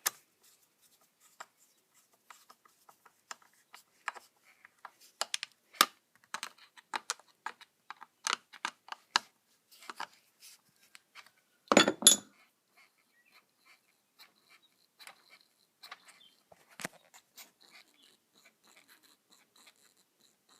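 Scattered light clicks and taps of a screwdriver and the chainsaw's plastic parts being handled, with a louder clatter about twelve seconds in.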